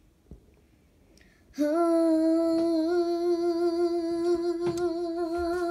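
A young girl's voice holds one long note of her song with a slight wobble. It starts about one and a half seconds in and steps up a little in pitch about a second later.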